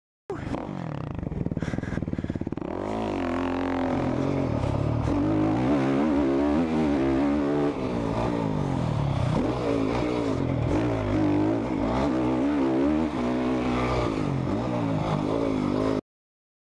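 Dirt bike engine running under changing throttle, its pitch rising and falling repeatedly as it is ridden. It cuts in abruptly and cuts off suddenly near the end.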